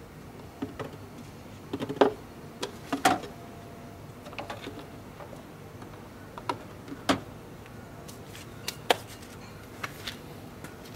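Engine oil glugging out of a plastic jug into a funnel: irregular gulps, clicks and small knocks, loudest about two, three and seven seconds in.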